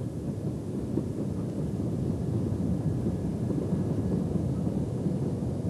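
A Romney, Hythe and Dymchurch Railway 15-inch gauge miniature steam locomotive approaching with its train of carriages. It makes a steady low rumble that grows slightly louder as it nears, with wind buffeting the microphone.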